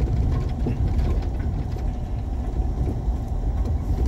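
Vehicle running along a rural drive, heard from inside the cabin: a steady low rumble of engine and road noise with faint light rattles.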